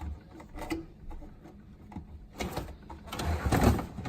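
A Samsung refrigerator being handled, opened and shut: a few light knocks, then a sliding rattle that builds near the end.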